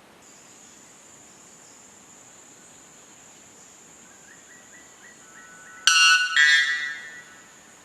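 White bellbird singing its mating song: an extremely loud two-note call about six seconds in, following a faint run of short notes. A steady high insect buzz carries on behind it.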